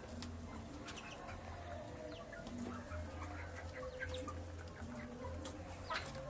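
Young chicks peeping while pecking at their feed, with many quick sharp taps scattered through, over a steady low hum.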